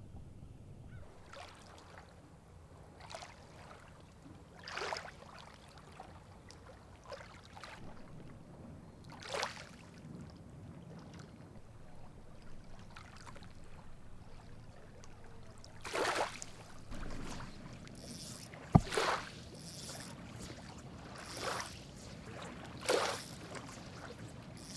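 Lake water splashing and swishing in short bursts every second or two, more often in the second half, over a faint low rumble. There is one sharp knock about three quarters of the way through.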